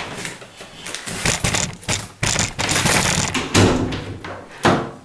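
Door handle being worked and the freshly freed tubular latch clicking and rattling as the door is opened and shut against its frame, with a sharp knock about three and a half seconds in and another near the end.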